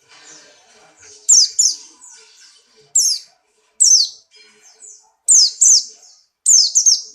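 Pleci buxtoni white-eye singing hard: loud, sharp, high chirps that slide steeply downward, mostly in quick pairs, with soft twittering between them. It is the bird's 'nembak' calling, which the keeper presents as the sign of a bird in strong breeding condition.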